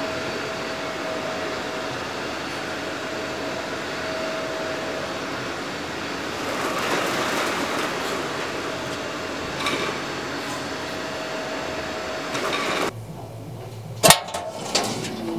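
Shop-front roller shutter being raised: a steady mechanical noise with a constant hum that swells about halfway through, cuts off abruptly near the end and is followed by a sharp click.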